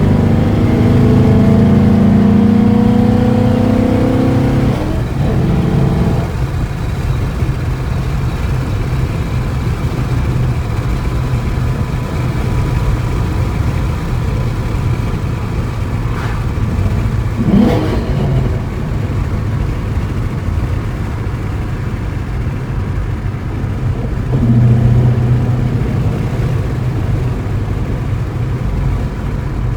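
2012 Mustang Boss 302's 5.0-litre V8 under way, pulling with its note rising for the first few seconds, easing off about six seconds in, then running steadily. There is a brief sharp sound about 17 seconds in and a second short pull near the end. The engine is being run under the load that used to set its misfire codes, as a check on whether the new crank and misfire relearns have cured them.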